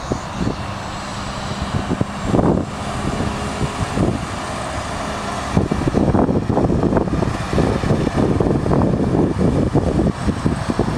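CAT Challenger RG655D Rogator self-propelled sprayer's diesel engine running steadily as the machine drives past spraying. From about halfway through the sound turns louder and uneven, with wind buffeting the microphone.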